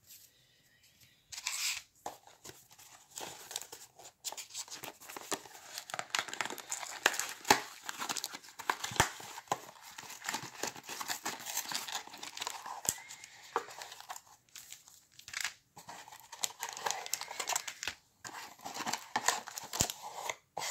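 Cardboard trading-card box torn open by hand, then plastic- and foil-wrapped card packs crinkling as they are pulled out and handled. The tearing and crinkling start about a second and a half in and go on with many small crackles.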